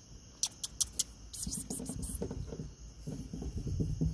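Small sounds from kittens on a wooden ramp and at the food at its top: a few sharp clicks about half a second in, then a run of quick, soft taps from about a second and a half in.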